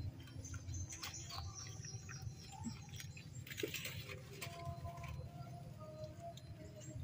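Soft rustling of leafy greens and scattered small clicks as a goat and a baby macaque feed from a trough, with a louder rustle about halfway through and faint chirping in the background.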